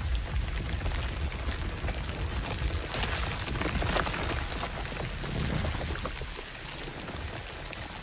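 A steady rushing hiss over a deep rumble, with a few sharp crackles about three to four seconds in; the rumble fades in the last couple of seconds.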